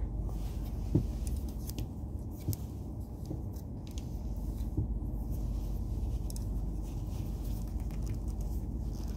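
Steady low rumble inside a train carriage, with a few light clicks and knocks from a plastic phone stand being handled.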